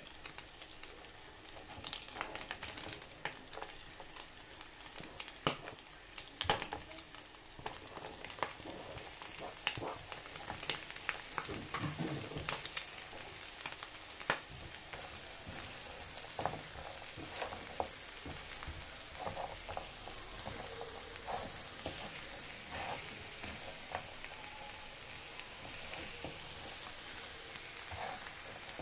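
Oxtail pieces sizzling in a nonstick frying pan as a silicone spatula stirs them: a steady frying hiss with frequent sharp clacks and scrapes as the pieces are turned against the pan. Partway through, chopped onion is in the pan frying along with the meat.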